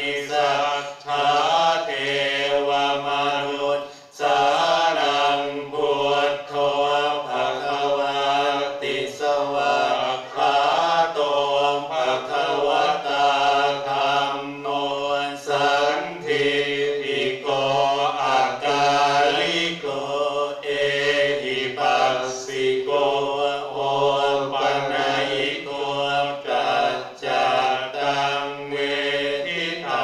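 Buddhist chanting in Pali by a group of voices, a steady recitation on a fairly even pitch with short breaks for breath.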